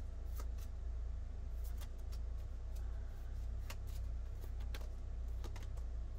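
Playing cards being handled out of sight: scattered light clicks and taps at irregular spacing, over a steady low hum.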